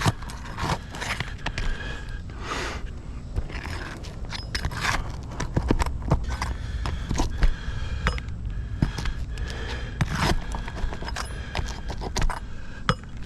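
Asphalt shingles being handled and scuffed: irregular rough scrapes and sharp clicks, with a steady low rumble underneath.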